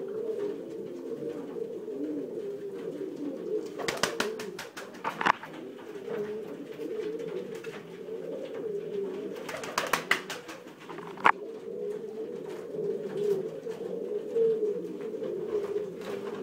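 Domestic pigeons cooing steadily in a loft, a continuous low warbling. Short bursts of rapid clapping or flapping break in about four seconds in and again about ten seconds in, with one sharp click just after.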